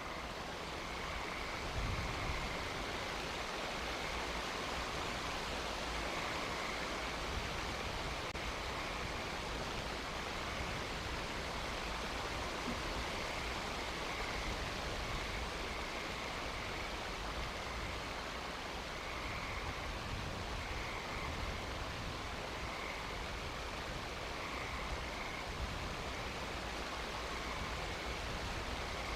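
Steady outdoor night ambience picked up by a nest-cam microphone: an even rushing hiss like wind or rain, with a faint high-pitched pulsing tone over it and low rumbles underneath.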